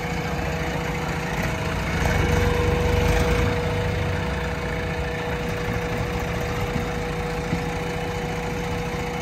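Diesel engines running steadily: a JCB 3DX backhoe loader close by and a tractor pulling away with a trailer loaded with dung. The sound is a little louder from about two seconds in.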